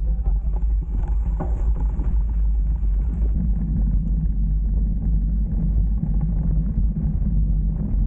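A steady low rumble of wind buffeting an action camera's microphone, together with a mountain bike's tyres rolling fast over a dirt track.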